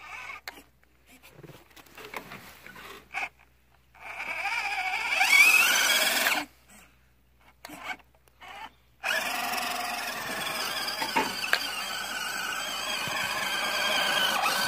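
WPL C54-1 RC crawler's 260 motor and counter-rotating gearbox whining under throttle: a short burst near the start, a louder burst of about two seconds that rises in pitch, then a steady run through the last five seconds as the truck digs itself in and gets buried.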